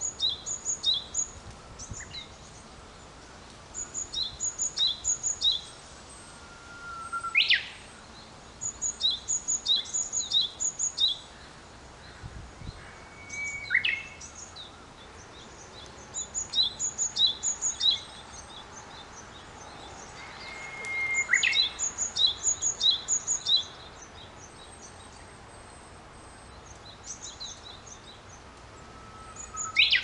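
Wild songbirds singing: phrases of quick, high chirps about every two to three seconds, and four times a long held whistle that breaks into a sharp sweep in pitch.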